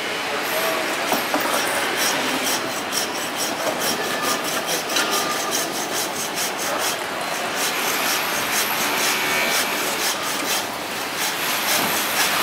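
A butcher's hand bone saw cutting back and forth through the rib bones of a beef forequarter in quick, even, repeated strokes.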